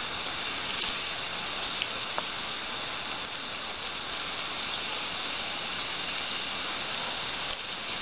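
Steady hiss and patter of a jet of water spraying and splashing onto grass.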